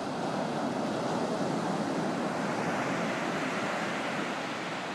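Steady wash of ocean surf on a beach, swelling slightly and easing near the end.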